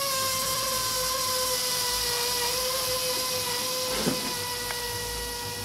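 Air squealing out of a punctured inflatable pool float: one steady high-pitched squeal over a faint hiss, sinking slightly in pitch.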